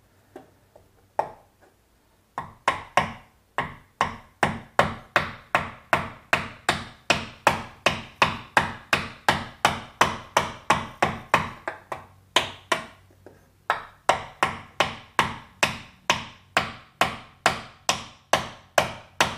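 Hammer striking a wooden block held against a skeg guard, tapping the guard onto an outboard motor's skeg. Steady, sharp blows about two a second, after a couple of single taps, with a short pause about two-thirds of the way through.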